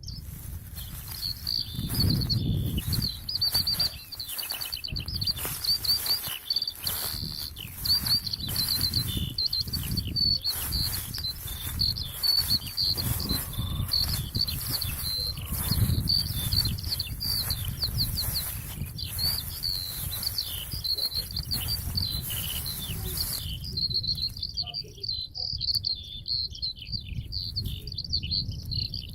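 Songbirds singing, a chorus of repeated high chirps and trills, over a loud rustling noise with a low rumble; the rustling stops suddenly near the end, leaving only the birdsong.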